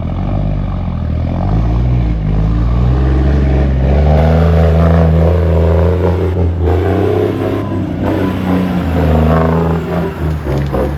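Cummins N14 diesel in a Kenworth W900 semi running hard under load, the revs climbing over the first few seconds and held high before easing near the end, as the truck, loaded with a bulldozer, tries to pull up a grade while struggling for traction.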